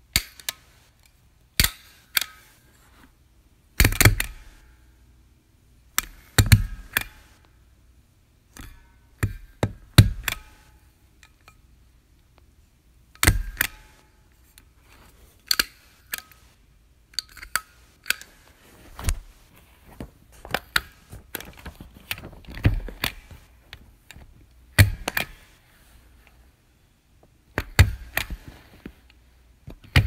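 Desk stapler being pressed again and again: sharp clacks, often in quick pairs, coming every second or two at an uneven pace.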